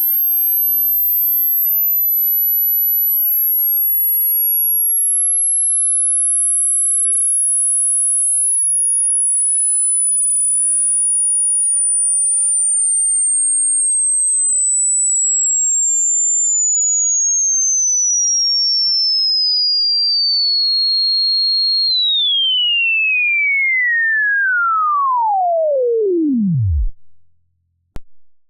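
Hearing-test sweep tone: a single pure tone gliding slowly down from a very high pitch, holding for a moment, then falling faster to a very low pitch and stopping near the end. A short click follows.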